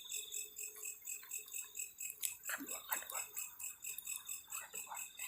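Insects chirping in a steady, even pulsing rhythm of about five pulses a second, high-pitched.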